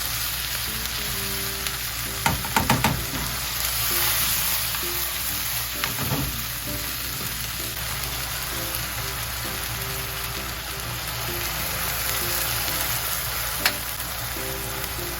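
Food sizzling steadily in a frying pan, with a cluster of sharp utensil clicks a couple of seconds in and a few more later, over soft background music.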